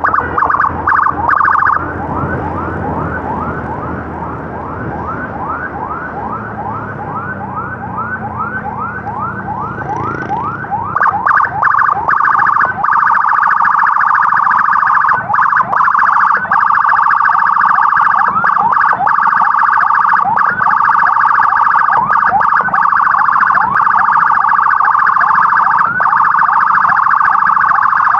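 Ambulance siren sounding a fast yelp, about four rising sweeps a second, then about eleven seconds in switching to a steady high wail that holds and gets louder. An engine runs underneath during the yelp.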